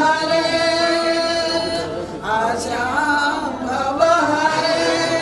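Two elderly women singing together into a hand-held microphone, holding long notes, with a brief break about two seconds in.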